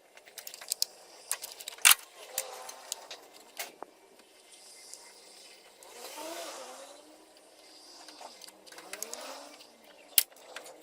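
Sharp metallic clicks and clinks of hand tools and parts during engine work, the loudest about two seconds in and near the end. A vehicle goes by in the middle, rising and falling, with a second, fainter pass a little later.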